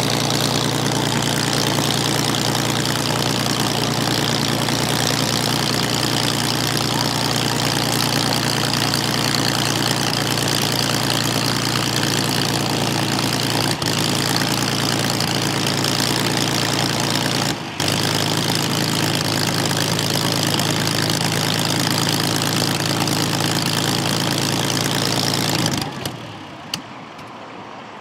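Supermarine Spitfire Mk IX's Rolls-Royce Merlin V12 engine running steadily at idle, then shut down about 26 seconds in, the sound dropping away sharply.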